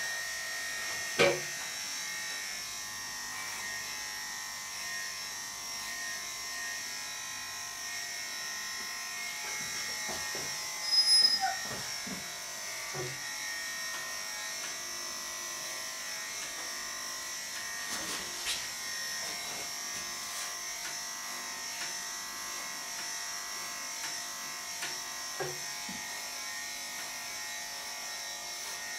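Electric pet grooming clippers running with a steady hum while shaving a bichon's coat. A few short knocks cut across it, the loudest a quick cluster about eleven seconds in.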